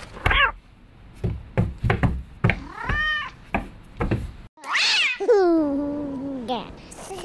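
Short meows, with hands slapping against a wall in between. About five seconds in comes a long drawn-out call that drops in pitch and is then held.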